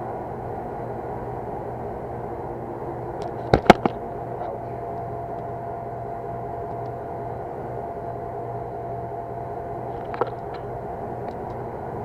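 Steady hum of running pump and boiler equipment, with a faint steady tone joining about four and a half seconds in and fading out near ten seconds. A few sharp knocks come about three and a half seconds in, and a smaller one near ten seconds.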